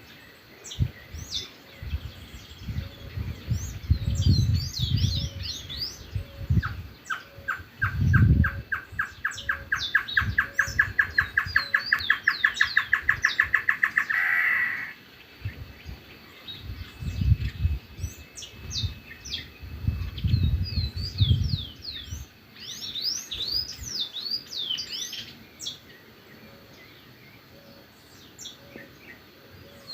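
Wild birds chirping and calling together. From about a quarter of the way in, one bird gives a long run of rapid repeated notes for about seven seconds, then stops abruptly. Low rumbles on the microphone come and go several times.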